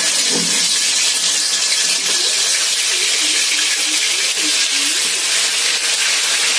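Hot oil in an aluminium kadai sizzling in a steady, loud hiss as marinated pieces are deep-fried in it.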